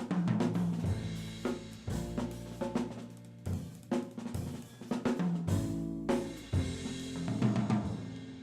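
A jazz group playing, with the drum kit to the fore: snare, cymbal, hi-hat and bass drum hits over sustained low pitched notes.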